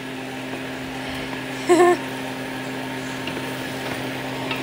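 Steady low hum in a home kitchen, with a brief hummed note from a voice, wavering in pitch, about two seconds in; the hum is the loudest part apart from that note.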